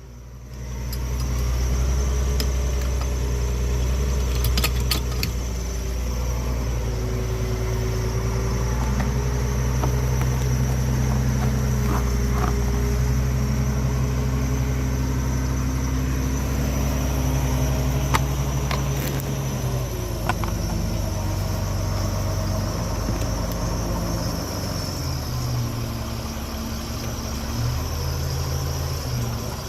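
Engine of a sawmill-yard machine running steadily, its pitch shifting up and down several times as the load and throttle change. A few short clicks or knocks sit over it.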